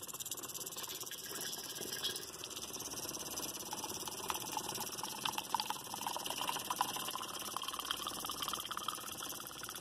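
A small fuel pump running with a fast, even buzz while water-contaminated fuel pours from a hose into a glass jar, splashing and gurgling most strongly from about four to seven seconds in.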